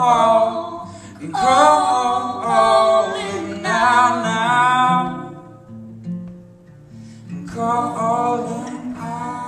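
A man and a woman singing together in long held notes over a strummed acoustic guitar. The voices drop out for about two seconds in the middle, leaving the guitar alone, then come back in.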